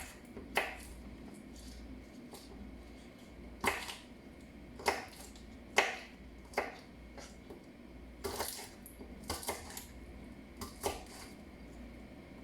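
Kitchen clatter: about ten irregular, separate clicks and knocks as chopped onion, garlic and ginger are put into the pot together.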